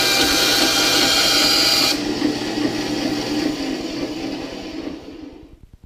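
10-inch benchtop bandsaw, slowed by a speed reduction kit and fitted with a metal-cutting blade, cutting through 16-gauge sheet metal with a loud, high-pitched cutting noise. About two seconds in the blade clears the cut and the harsh high sound drops away, and the saw then runs free and winds down, fading to a low pulsing near the end.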